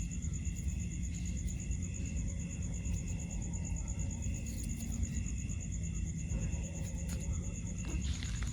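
Steady, high-pitched, rapidly pulsing trill of calling insects, with a fainter lower pulsing call beneath it, over a constant low rumble.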